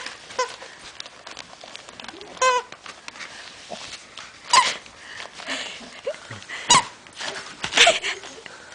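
A squeaky plush zebra toy inside its wrapping squeaks about five times in short squeaks as a puppy bites at it, with wrapping paper crinkling between the squeaks.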